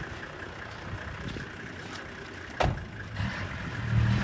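A pickup truck's door slams shut once, about two and a half seconds in, then the truck's engine runs, growing louder near the end.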